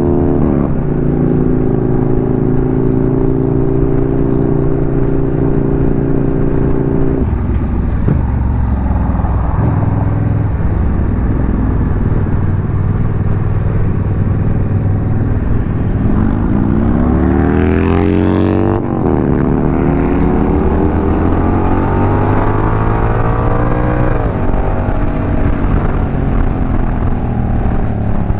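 Honda Rebel 1100 DCT's parallel-twin engine under way: a steady cruise at first, then pulling up through the revs with the pitch rising and dropping sharply at each automatic gear change, twice in the latter part.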